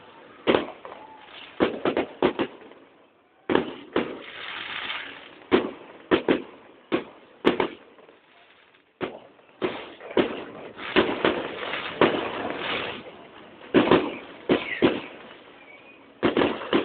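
Fireworks going off: irregular sharp bangs and pops, some in quick succession, with crackling between them and a short lull about halfway through.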